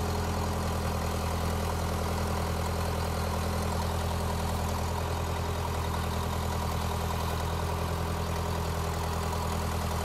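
Case 580E backhoe's diesel engine idling steadily.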